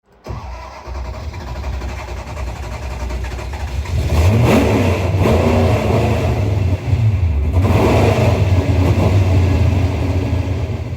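Car engine running and revving, with a marked step up in level about four seconds in and swells of revving after that.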